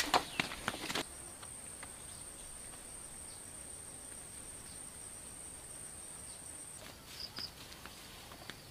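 A steady, high, thin insect drone runs for several seconds and then cuts off suddenly. It opens with a few sharp knocks and steps as pipe is handled, and near the end come two short high chirps and a few more steps.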